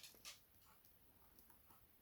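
Near silence with a few faint clicks and ticks: a lock pick working the pins inside a Kasp 19070 padlock. The clearest clicks come right at the start.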